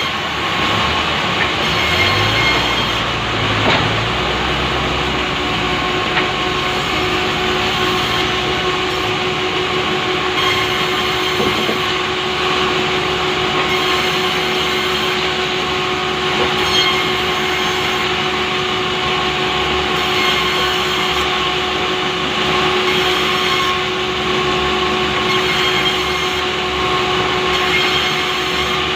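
Engine-driven saw running steadily under load, ripping lengthwise through a large pulai log.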